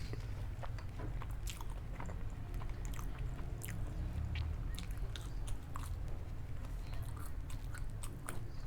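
A person chewing and biting food close to the microphone, with many small, sharp crunches and clicks, over a steady low hum.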